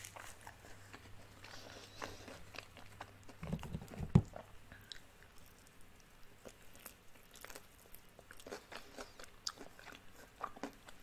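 A person eating crispy fried chicken wings: crunchy bites of the breading and chewing, with a loud low thump about four seconds in.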